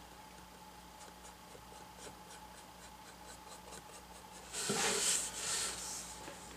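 Bristle brush strokes scrubbing paint onto a painted board, faint short strokes about four a second. About four and a half seconds in comes a louder scraping rustle for about a second as the board is turned around, then it fades.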